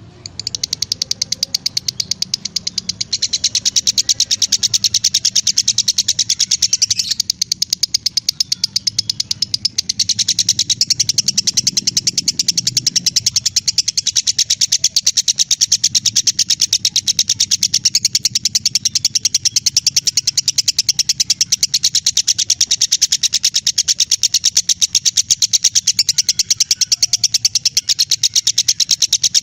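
Lovebird chattering in one long, unbroken string of very rapid shrill notes. It eases off for a few seconds about seven seconds in, then picks up again.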